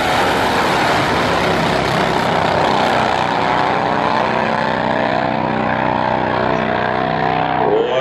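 Two nitro-fuelled Super Twin drag motorcycles running flat out down the strip, a loud, steady engine noise that grows duller toward the end as they move away.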